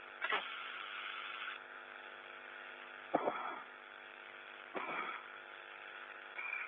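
Steady hum and hiss on an open spacewalk radio communications loop, broken three times by short bursts of radio noise.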